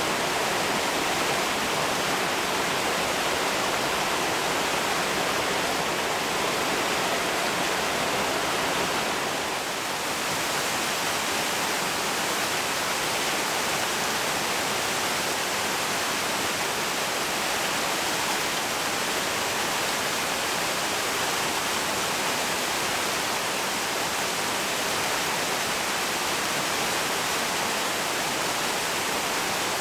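Waterfall pouring in a steady, unbroken rush of falling water.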